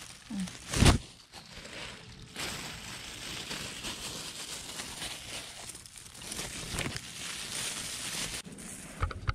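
Plastic bag crinkling and rustling as bone meal fertilizer is scooped and sprinkled by hand onto soil and dry leaves, with a sharp thump about a second in and a smaller one near the end.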